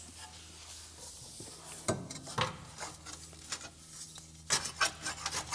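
New rear upper suspension arm being slotted into the chassis brackets of a Land Rover Discovery: scattered light metallic clinks and knocks with some rubbing, and a quick cluster of sharper clicks near the end, over a faint steady hum.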